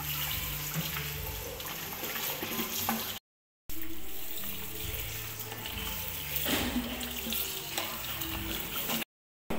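Tap water running into a stainless steel sink and splashing as fish head pieces are rinsed by hand in a plastic colander, over background music. The sound drops out completely twice, briefly, about three seconds in and near the end.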